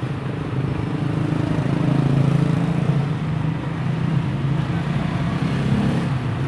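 A steady low mechanical hum with no clear starts or stops.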